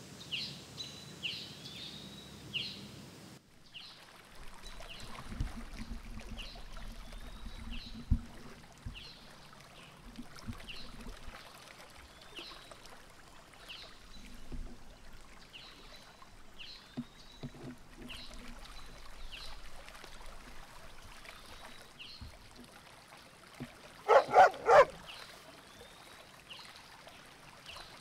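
Outdoor nature ambience: small birds chirping over and over, short calls repeating every second or so, over the steady rush of a stream. About three seconds before the end comes a loud animal call in three or four quick pulses.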